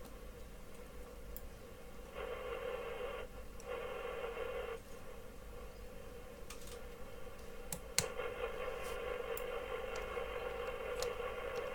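Uniden PC78XL CB radio's speaker giving out receive noise, a thin buzzing hiss that swells louder for a few seconds twice and again after a sharp click about eight seconds in. The receive audio is weak, a sign of the faulty common connection at the front-panel mic connector.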